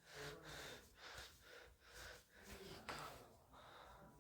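Near silence between spoken remarks, with faint breathing and small mouth sounds.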